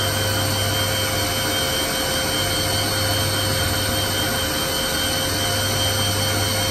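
Haas VF-2 CNC vertical machining centre running: a steady hum with several constant high whining tones over it, unchanging throughout.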